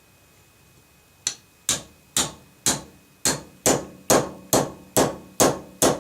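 Hammer tapping a roll pin starter, starting a roll pin into an AR-15 charging handle latch: a steady run of about eleven sharp metallic taps, roughly two a second, beginning about a second in, each with a short ring.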